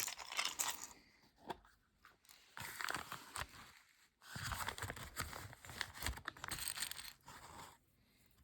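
Crinkly rustling as small pellets and their packaging are handled, in several bursts with short pauses between.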